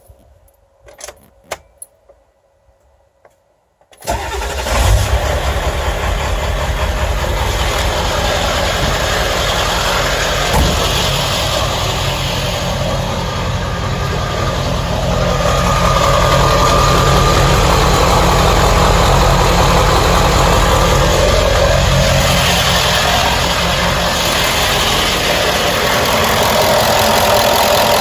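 A 1995 Ford E-350's 7.3 L Powerstroke turbodiesel V8 is started after a few clicks: it catches abruptly about four seconds in and settles into a steady idle. At idle it carries the loose, unexplained noise the owner is trying to diagnose, which goes away when driving.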